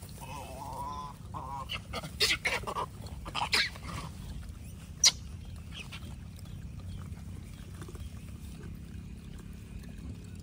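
Gray langurs calling: a wavering call in the first second and a half, then a run of short, harsh calls between about two and four seconds in. A single sharp click about five seconds in, over a steady low rumble.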